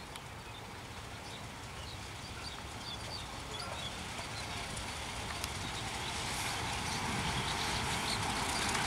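Diesel locomotive hauling a passenger train as it approaches, its low rumble growing steadily louder. Birds chirp in the first half.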